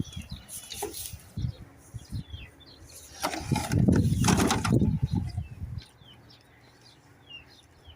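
Small birds chirping in the background, with a louder burst of noise about three seconds in that lasts roughly two seconds.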